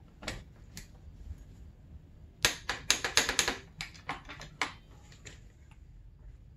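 A ratchet clicking in a quick, uneven burst of sharp metal clicks from about two and a half seconds in, dying away after about two seconds, as the fork's lower triple-clamp pinch bolts are snugged up.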